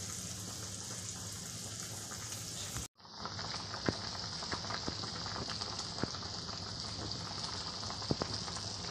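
Kadhi simmering in an iron kadai over a gas burner: a steady bubbling hiss with scattered small pops and ticks while besan batter drips into it. The sound cuts out abruptly for a moment just before three seconds in, then resumes.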